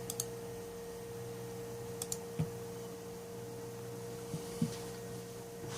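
A few faint computer mouse clicks, two in quick succession near the start and again about two seconds in, with a couple of soft taps later, over a steady electrical hum with a constant tone.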